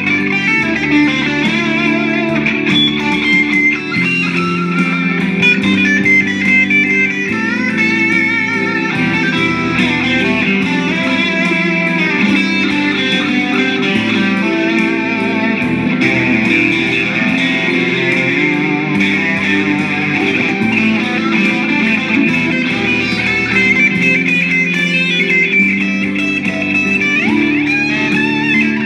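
Telecaster-style electric guitar playing single-note lead lines with string bends and vibrato, over a backing track with a bass line moving underneath.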